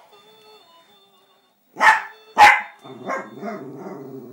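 A dog barks sharply twice, then goes into a long wavering, grumbling howl: its 'singing'.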